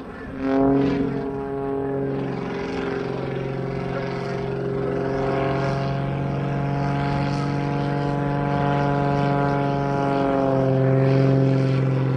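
Engine and propeller of an aerobatic biplane running in a steady drone with a clear pitch, swelling briefly about half a second in and shifting a little in pitch as it manoeuvres.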